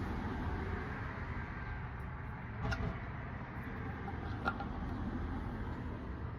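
Steady low rumbling background noise, with two small clicks a couple of seconds apart.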